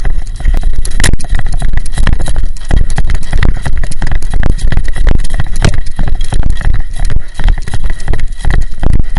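Running footsteps through brush and leaves, heard as rapid, irregular loud thumps and rustling as gear jostles against a body-worn action camera.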